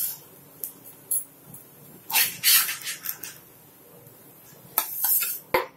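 Spatula scraping under a cooked rava adai on a flat tawa to lift it off, with a few light clicks and knocks of kitchenware, including a small cluster near the end as it goes onto a steel plate.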